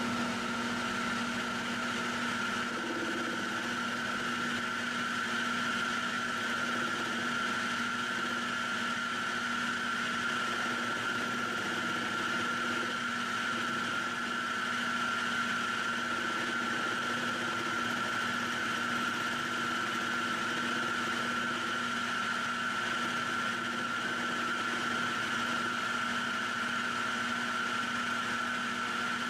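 Electric machine motor running at a steady speed, with a constant low hum and a steady whine; it has just been switched on.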